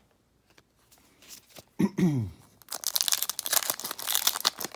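A trading-card pack wrapper being torn open and crinkled, a dense crackling rustle that starts about two and a half seconds in. Just before it there is a short low vocal sound that falls in pitch.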